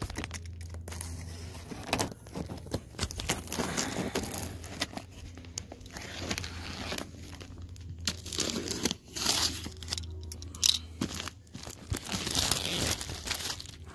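A large cardboard box being opened by hand: irregular tearing, crunching and crinkling of cardboard and packing, with scattered knocks and one sharper knock near the end.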